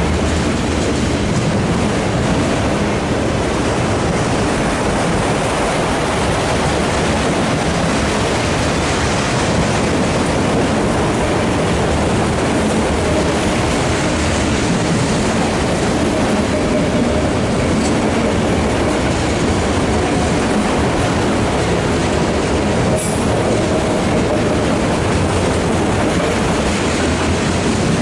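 Empty autorack freight cars rolling steadily past on the adjacent track: the continuous rumble and clatter of steel wheels on the rails.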